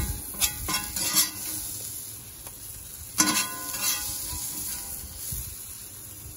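A metal spatula scrapes and scoops across a carbon steel paella pan while oil and vegetables sizzle in the hot pan. There are several sharp scrapes, and the loudest comes about three seconds in.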